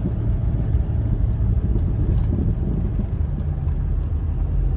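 Steady low rumble of a moving vehicle: engine and road noise, with a few faint clicks.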